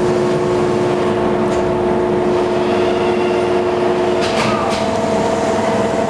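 Blanchard 20D rotary surface grinder running: a steady motor hum over a rushing noise from the spinning wheel head and chuck. About four seconds in, the lower hum stops while a higher one carries on, followed by a few short hisses.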